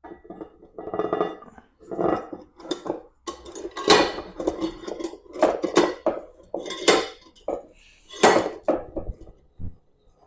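Steel clamp parts clinking and knocking as they are handled and fitted together on a workbench: a run of irregular metallic clinks, loudest about four, seven and eight seconds in.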